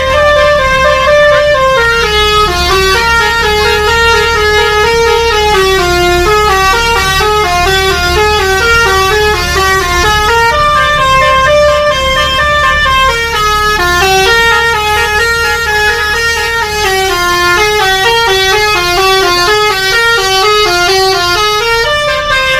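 Bus 'telolet' basuri horn playing a continuous melody of quick stepping notes, the same tune coming round again several times, over a low steady engine hum.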